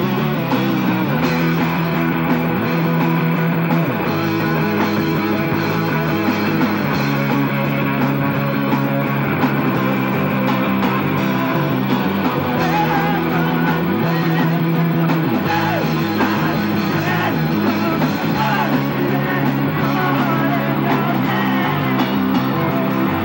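Live rock band playing a song: electric guitars and a drum kit, with a man singing into a microphone. It runs at a steady, loud level without a break.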